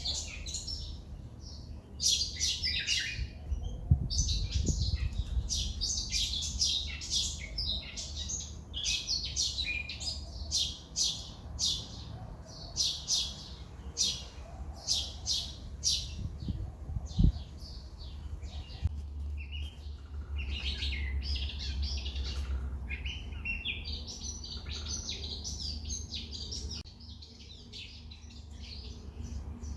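Wild birds chirping and twittering: many rapid, short high calls in quick runs, over a steady low rumble.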